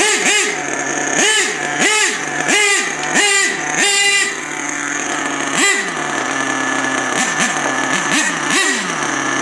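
Traxxas Savage X 4.6 RC monster truck's small two-stroke nitro engine revving in quick throttle blips, about three every two seconds, each pitch rising sharply and falling back. The last blip is held briefly about four seconds in, then comes one more rev, then an idle with a few short light blips near the end.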